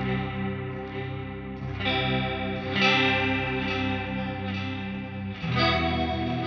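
Electric guitar fitted with Seymour Duncan Jupiter pickups, played through a Revv Generator 120 amp: chords strummed and left ringing, with a new chord struck about every one to three seconds.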